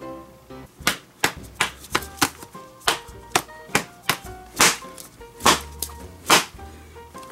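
Background music with held tones, under a run of sharp knocking hits about two to three a second.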